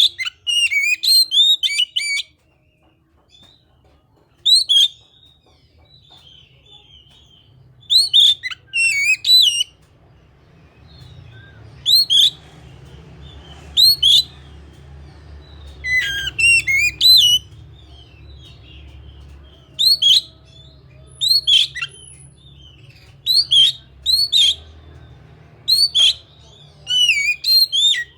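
Oriental magpie-robin (kacer) singing loud, sharp whistled and chattering phrases in short bursts, each a second or so long and separated by pauses of a second or more. A faint low hum runs underneath.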